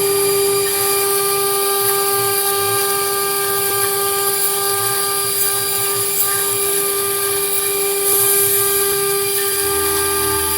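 CNC router spindle milling 10 mm aluminium plate. It runs with a steady high whine over a hiss from the cutting.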